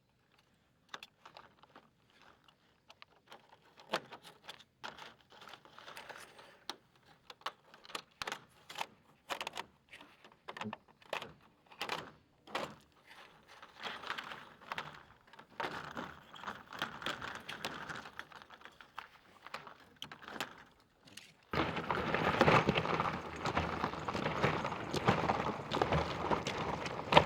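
Plastic dimpled membrane (Delta wrap) being handled and cut with a knife: irregular crinkling and crackling clicks. For the last several seconds a louder, steady rustling noise takes over.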